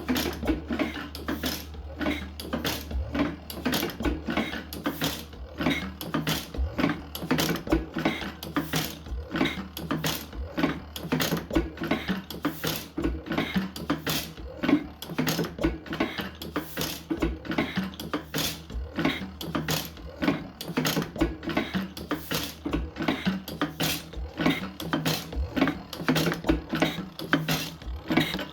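1910 La Fourmi 3 hp engine running, its moving parts giving a rapid, even clatter of clicks over a steady low hum.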